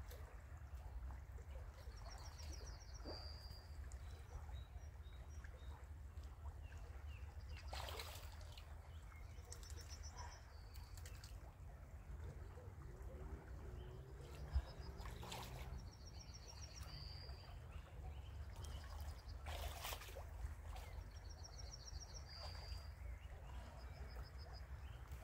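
Quiet streamside ambience: a bird repeats a short, high trilled phrase about every six or seven seconds over a low steady rumble and a faint trickle of water. A few brief swishes and a single sharp click about halfway through.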